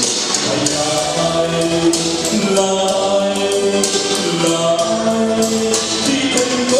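A man singing a Catholic devotional song into a handheld microphone, holding long stepwise notes over accompanying music with light, regular percussion.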